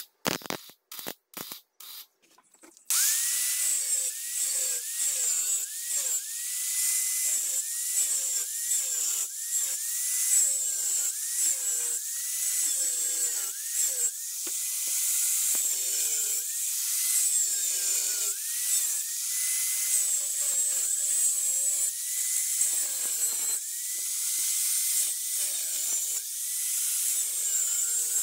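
A few short bursts of tack welding in the first three seconds, then a handheld angle grinder with a cut-off disc cutting square steel tubing: a high whine that sags in pitch each time the disc bites into the metal and recovers, about once a second, over a steady hiss of the cut.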